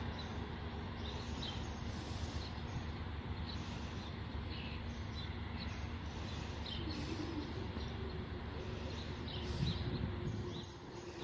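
Small birds chirping in short repeated calls over a steady low outdoor rumble, which eases slightly near the end.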